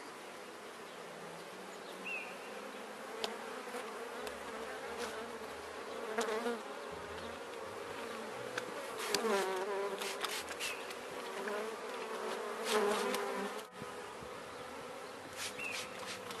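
Honeybees buzzing around an open top bar hive while a collapsed comb is being removed: a steady hum of many bees, swelling and wavering in pitch as single bees fly close, loudest about nine and thirteen seconds in. The bees are riled up and defensive. A few light clicks.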